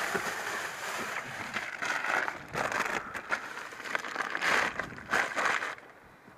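Wind buffeting the camera's microphone, a rough rushing noise that surges in gusts and drops away suddenly near the end.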